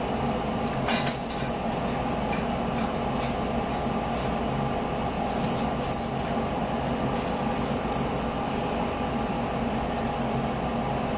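Steady room hum with scattered light clicks and clinks of a fork against a plate as someone eats, the sharpest one about a second in and a cluster of them between about five and nine seconds.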